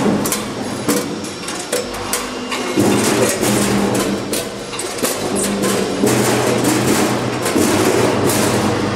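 A 10-head multihead weigher running with chicken wings: its bucket gates clack open and shut over and over, and the wings knock into the stainless buckets. Under the clacking, the vibrating feeders hum in short pulses that start and stop every second or so.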